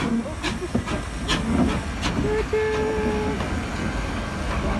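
Small steam tank locomotive (ARBED Esch No. 5) moving off slowly: steam hissing, with a few slow exhaust chuffs in the first second and a half. A voice calls out 'choo-choo' in the middle.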